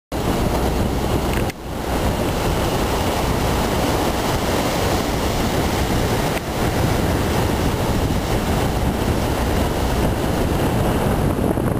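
Steady loud rush of wind buffeting the microphone with sea noise underneath, dipping briefly twice.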